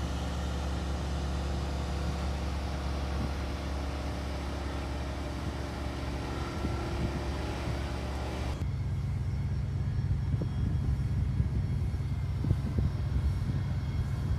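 A steady low engine rumble with a constant pitch. About eight and a half seconds in it cuts abruptly to another low rumble with scattered light knocks.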